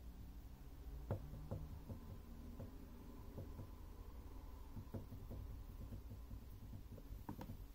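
Faint, irregular light taps and knocks on a plush-covered cat tree, a dozen or so scattered through the clip starting about a second in.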